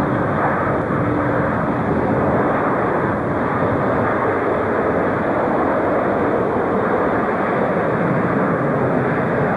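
Boeing 747 jet engines at takeoff power during the takeoff roll: a loud, steady jet roar.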